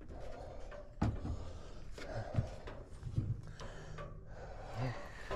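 A man breathing hard, with a few short low grunts, out of breath from hauling a heavy heat pump coil up through an attic hatch. A knock about a second in.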